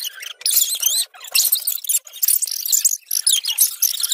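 A spatula scraping and clicking across a stone tabletop as it sweeps paper play money into a cardboard box, with rustling paper and high, wavering squeaks from the scraping.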